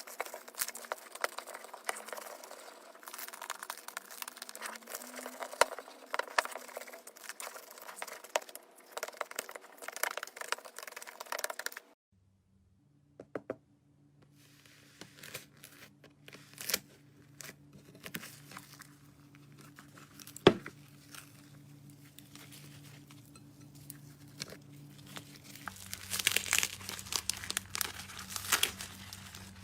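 Slime being squeezed and worked by hand, making dense crackling, crinkly popping sounds. The sound cuts out abruptly about twelve seconds in, then the crackling resumes more sparsely over a faint steady hum and grows busier near the end.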